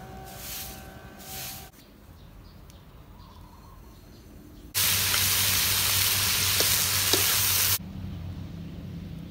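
A soft grass broom brushes across bare ground in two strokes. After a pause comes about three seconds of loud, even sizzling from a hot pan as food is stir-fried; it starts and stops abruptly.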